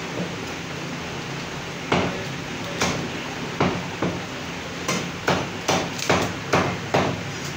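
Heavy meat cleaver chopping through goat head meat and bone onto a thick wooden chopping block. There are a few separate chops, then a quick run of about seven chops, two or three a second, near the end.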